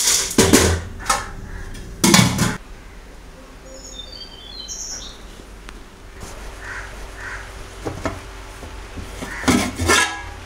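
Aluminium cooking-pot lid clanking against the pot's metal rim: two sharp clanks in the first three seconds as it is set on, then more clanks near the end as it is lifted off.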